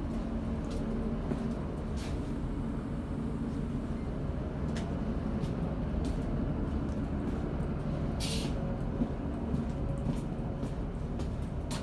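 Steady low rumble and drone inside the passenger saloon of a Class 156 diesel multiple unit, with a few light clicks and a short hiss about eight seconds in.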